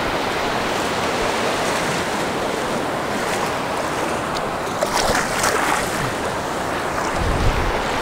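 Surf washing up a sandy beach: a steady hiss of breaking waves and foam over the shallows, with a few short splashy bursts about five seconds in and a brief gust of wind on the microphone near the end.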